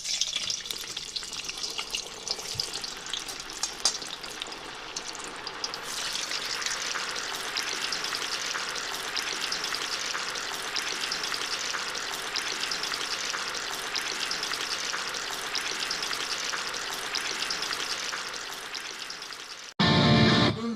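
Spicy smoked longganisa sausages frying in a pan: a dense, steady sizzle with sharper pops and crackles in the first few seconds. Near the end the sizzle cuts off and loud music begins.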